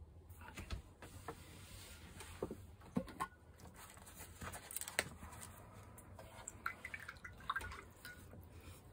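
Sheets of watercolour paper being handled and swapped on a cloth-covered table: soft rustling with scattered light taps and clicks, the sharpest about three and five seconds in.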